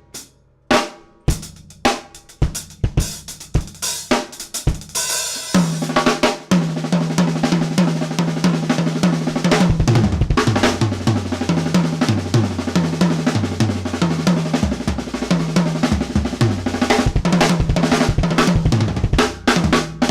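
Acoustic drum kit played for a sound check: bass drum, snare, hi-hat and cymbals. Separate hits for the first few seconds, then continuous, busy playing from about six seconds in, with a short break near the end.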